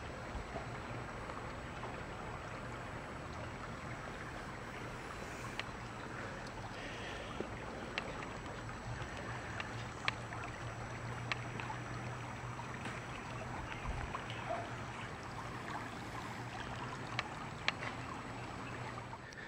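Shallow creek water running over stones, a steady babble, with scattered light clicks now and then.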